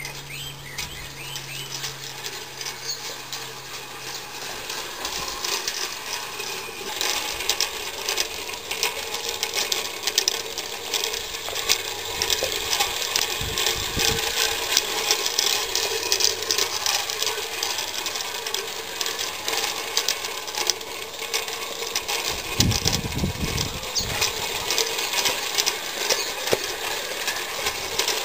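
A gas-fired live-steam Mamod 0-4-2 garden-railway locomotive running, a rapid mechanical clicking and rattling with steam hiss. It gets louder about seven seconds in, and there is a brief low thump near the middle and another near the end.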